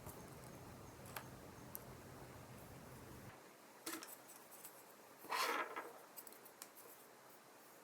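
Sparse small clicks and one short scrape from tools and parts being handled while working on an iPhone 7, with a faint low hum that stops partway through.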